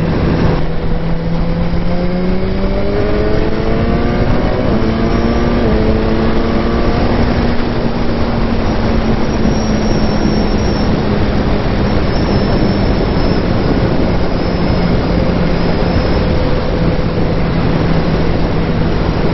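BMW S1000R's inline-four engine running under way, under heavy wind noise on the microphone. Its pitch rises over a few seconds starting about two seconds in, holds, then drops back about halfway through and stays steady.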